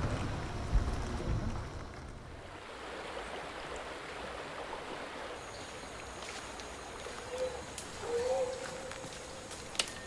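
A low vehicle engine rumble fades out in the first two seconds. It gives way to steady rainforest ambience: an even hiss with a faint high insect buzz, a short wavering call near the end, and a few sharp clicks.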